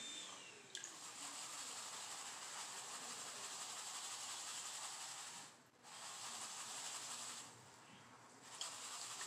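Faint swishing and sloshing of muddy water as a black plastic gold pan of paydirt is shaken and swirled under water in a tub, washing the gravel. It stops briefly a little past halfway through and again for about a second near the end.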